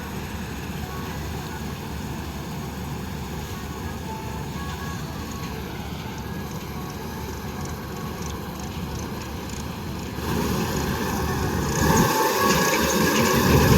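AVTAR 6500 combine harvester running steadily while harvesting mung beans. It grows louder about ten seconds in and again near the end.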